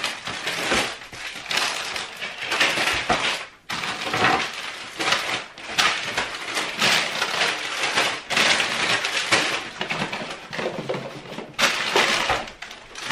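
Plastic crisp packets and snack bags crinkling and rustling as they are pulled one after another out of a crammed cupboard, an irregular run of crackles with a brief pause about three and a half seconds in.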